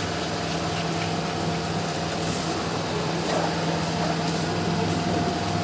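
Steady mechanical hum over a constant hiss.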